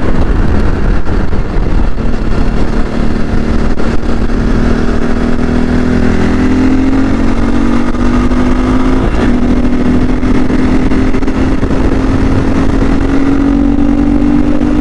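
CSC RX4 motorcycle engine pulling under way, its note climbing steadily as the bike speeds up, with a brief break about nine seconds in. A heavy wind rumble runs underneath.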